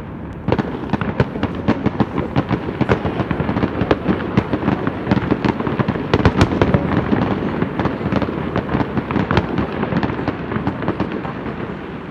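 Fireworks display: a rapid, dense barrage of bangs and crackles, thickest around the middle and thinning out near the end.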